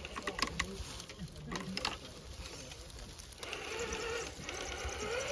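Electric RC rock crawler working over rock. The tyres and chassis click and knock in the first two seconds, then the motor and gears set up a steady whine whose pitch wavers with the throttle from a little past the middle.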